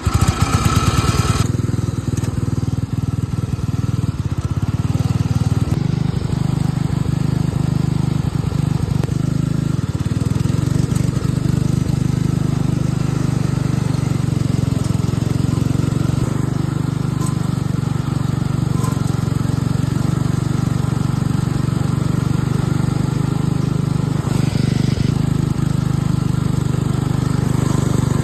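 John Deere 56 lawn mower's engine running steadily under load with the deck engaged, cutting grass. It is louder and harsher for the first second or so, then holds an even drone.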